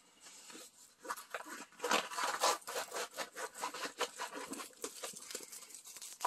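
Diamond-painting canvas being rolled up and rubbed between the hands to work out its creases: an irregular dry rustling and scraping that starts about a second in.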